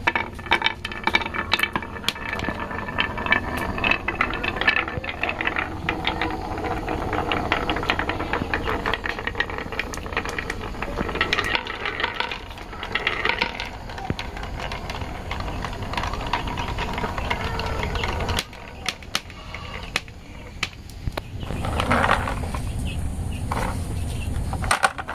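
Glass marbles rolling and clattering down wooden and plastic marble-run tracks. Many quick small clicks and knocks sit over a steady rolling rumble.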